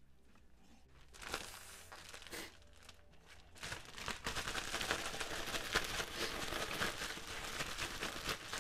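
Plastic zip-top freezer bag crinkling continuously from about four seconds in as raw chicken drumsticks are shaken in a dry spice rub inside it, after a few brief rustles.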